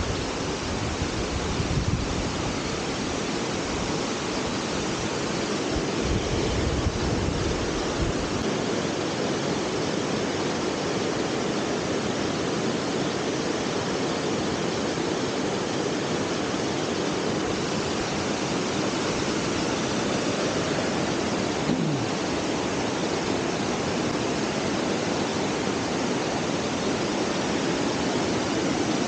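Amicalola Falls, a tall cascading waterfall, rushing steadily over rock with the creek below it. Wind buffets the microphone with low rumbles during the first several seconds.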